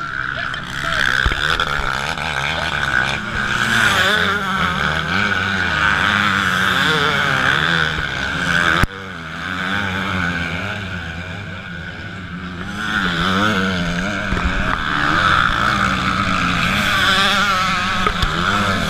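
Several motocross bikes running hard up a dirt climb, their engine pitch rising and falling as riders rev and shift, with bikes overlapping one after another. The sound drops suddenly about nine seconds in, then builds again as more bikes come up.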